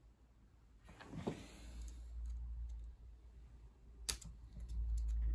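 Hands working small wires and connectors: a rustle about a second in and a sharp click about four seconds in, with a few faint ticks, over a low rumble that builds from about a second and a half in.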